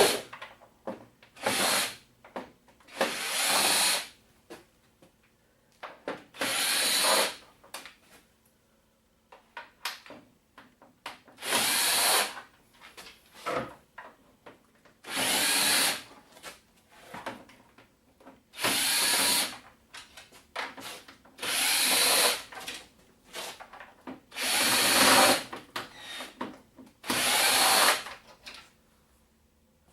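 Electric screwdriver spinning screws out of a TV's plastic back cover in short runs of about a second each, roughly nine times, with pauses between screws.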